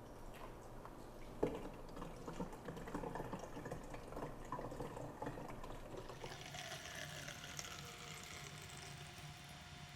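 Water poured from a pitcher into the water tank of a compact countertop dishwasher through the open top fill port, splashing steadily into the tank. There is a short knock about one and a half seconds in.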